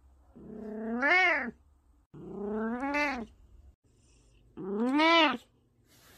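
A 16-year-old cat meowing three times: long drawn-out calls, each rising and then falling in pitch.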